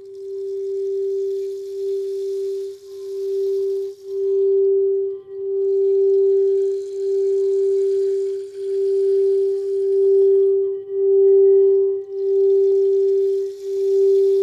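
A singing bowl sounding one steady, low, sustained tone with a fainter higher tone above it. Its loudness swells and dips in a slow pulse about once a second. A soft hiss comes and goes above it.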